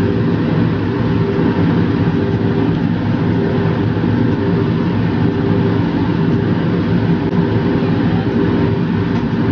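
A steady, loud mechanical hum with a rushing hiss, under a pan of chicken soup boiling on a gas stove and being stirred with a plastic ladle.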